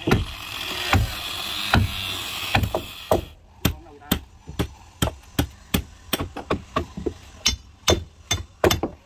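Hammer blows on the wooden timbers of a fishing boat's hold and cabin being knocked apart: sharp, irregular knocks, roughly two a second. A steady hiss runs under the first three seconds or so.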